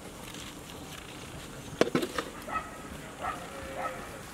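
Metal ladle knocking against a large metal tray of biryani: a few sharp clanks about two seconds in. Several short animal calls sound in the background after them.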